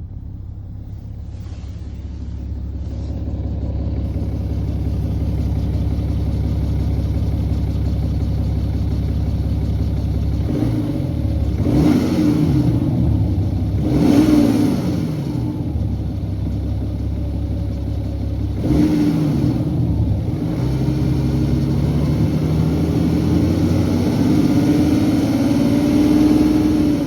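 BMW N57 3.0-litre straight-six diesel idling, then revved in three short blips and one longer, slower rise near the end. It carries the timing chain noise the owner was chasing; the chain was later replaced, and the main bearings were found badly worn.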